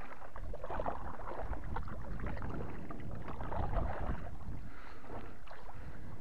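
Kayak paddle strokes, the blades dipping and splashing in the water.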